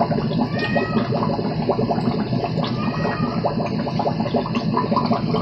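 Aquarium filtration bubbling and gurgling steadily in a tub-style fish tank, with a dense stream of small bubble pops.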